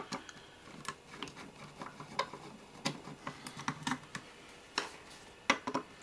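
Hand screwdriver undoing the screws that hold a circuit board in a plastic equipment housing: a string of small, irregular clicks and ticks of the tip and screws, with a sharper click about five and a half seconds in.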